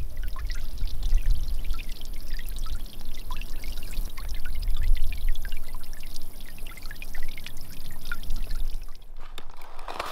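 Small garden-pond fountain spraying water that splashes back onto the pond surface: a steady patter of many droplets over a low rumble. It cuts off suddenly about a second before the end.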